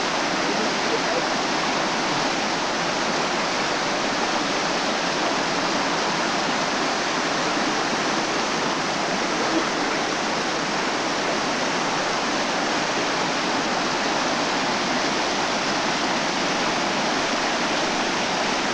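Mountain stream tumbling over rocks as small whitewater rapids, a steady rushing of water.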